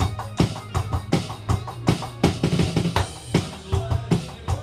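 Steady rock drum beat played on an electronic drum kit, with bass drum and snare hits, over a backing track with a bass line.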